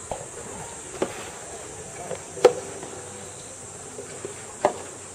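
Soft tennis rally: the soft rubber ball is struck by rackets, making sharp hollow pops about every one to two seconds, the loudest about halfway in. Under it runs a steady high drone of insects.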